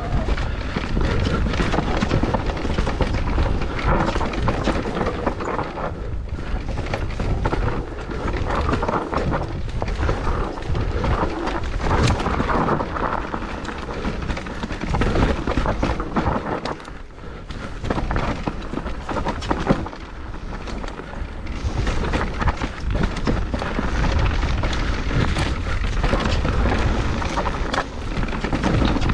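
Mountain bike riding along a trail: a steady low wind rumble on the microphone, mixed with tyre noise and rattling from the bike. It eases briefly about two-thirds of the way through.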